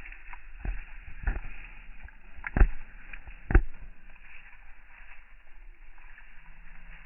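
A rabbit chewing and munching leaves close to the microphone. There are a few dull crunching thumps, the two loudest about two and a half and three and a half seconds in.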